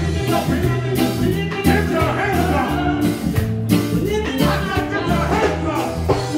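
Live reggae band playing with a singer, a strong bass line moving note by note under steady drum strokes.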